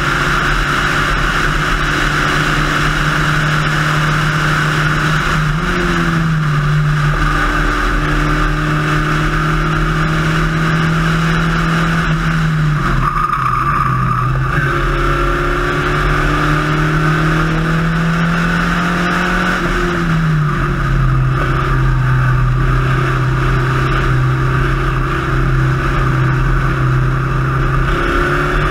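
In-car sound of a Spec Racer Ford's four-cylinder engine running hard on track. Its note jumps up sharply about six seconds in, as on a downshift, and dips briefly near the middle when the throttle lifts. It then climbs steadily under acceleration and drops back about two-thirds of the way through at an upshift, all over steady wind and road noise.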